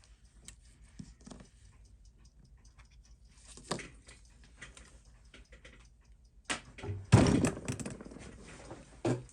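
Light clicks and taps of small parts and tools being handled, with a louder knock about four seconds in and a louder clatter of knocks from about six and a half seconds.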